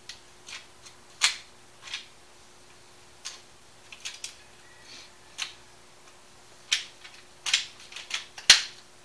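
Scattered sharp clicks and knocks of a Byrna TCR compact rifle being handled while its CO2 housing in the left rail is worked; the loudest click comes near the end.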